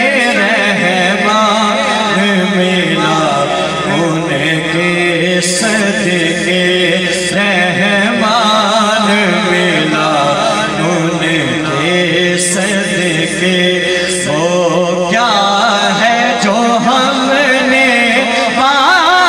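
Man's voice singing a naat through a microphone and PA, in long, wavering, ornamented held notes.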